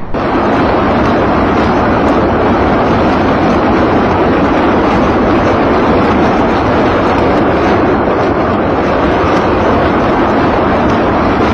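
Salvo from truck-mounted multiple rocket launchers: rockets launching in rapid succession, blending into one steady, dense rushing noise.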